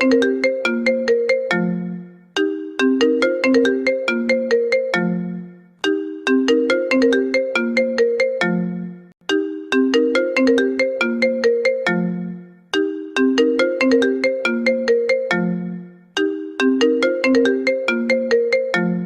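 iPhone incoming-call ringtone playing on a loop: a short melodic phrase of quick plucked notes that ends on a held low note, repeated about every three and a half seconds.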